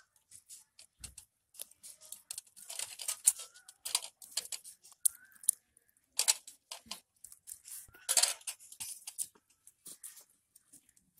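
Irregular crackling and clicking from a firewood fire burning under a clay cooking pot, with a few louder clusters of crackles and clatters.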